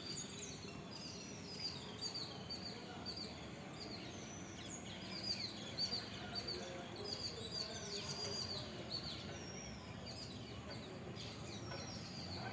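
Small birds chirping, many short high calls that drop in pitch, repeated throughout over a steady low background of outdoor noise.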